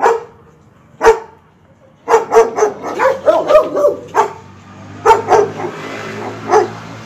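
A dog barking: single barks about a second apart, then a quick run of barks a couple of seconds in, then a few more spaced barks.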